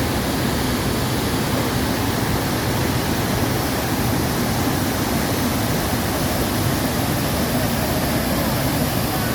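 Shifen Waterfall, a large waterfall, pouring down in a steady, unbroken rush of water noise.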